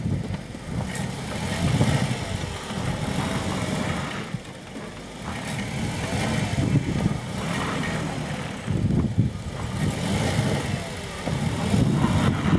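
Jeep Wrangler Rubicon engine running under load as it backs through deep snow, the revs swelling and dropping several times as it pushes against the snow and bogs down.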